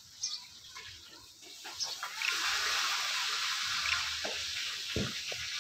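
A steady hiss, like running or spraying water, sets in about two seconds in and holds, with a few faint short chirps and knocks before it and a low thud near the end.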